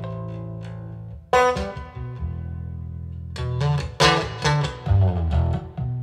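Guitar-led recorded music played back through a hi-fi system: a held chord over a low bass note, then fresh plucked guitar notes struck a little over a second in and a quick series of them from about three and a half seconds in.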